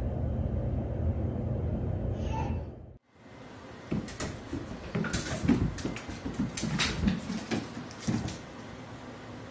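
A cat pouncing at a door: a series of irregular knocks and thumps as its paws strike the door and it lands on a hardwood floor. Before this, a steady low rumble runs for about three seconds and then cuts off.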